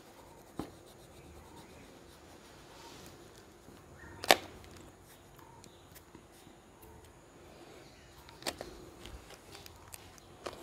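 Quiet room with a few light, sharp clicks and taps from handling oil pastels and the drawing board, the loudest about four seconds in.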